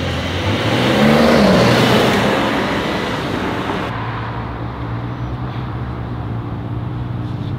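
A Porsche 911 drives past close by, its engine note swelling and peaking between one and two seconds in. At about four seconds the sound cuts to Nissan GT-R R35s rolling slowly in a line, their twin-turbo V6 engines running at a steady low hum.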